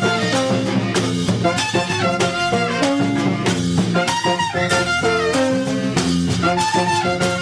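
Salsa orchestra playing, with a brass section over drums and percussion in a steady beat.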